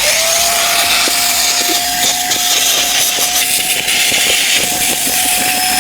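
AUX wet/dry vacuum cleaner with a copper motor switching on and running, a loud steady rushing with a steady whine, drawing air through a small crevice nozzle.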